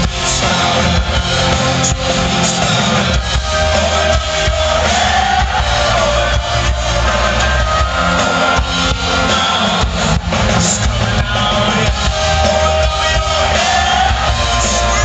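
Live rock band playing, recorded from the crowd: a man sings over electric guitar and a full drum kit, with the sung line rising and falling about four seconds in and again near the end.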